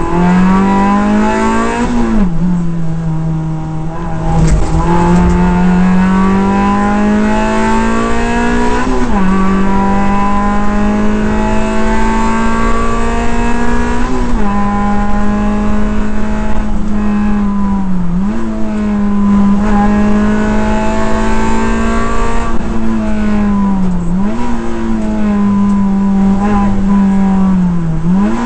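Suzuki Swift Sport rally car's four-cylinder engine, heard from inside the cabin, held high in the revs at full stage pace. The revs drop sharply and pick up again every few seconds, about six times, as the driver shifts and lifts for corners.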